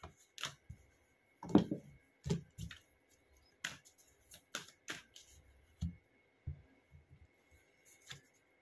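A deck of cards and its cardboard box being handled on a table: irregular soft clicks, taps and light knocks as the box is opened and the cards are slid out and shuffled.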